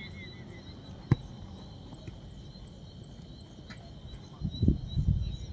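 Insects chirping steadily in a high, even band, with one sharp knock about a second in and a run of low thuds near the end.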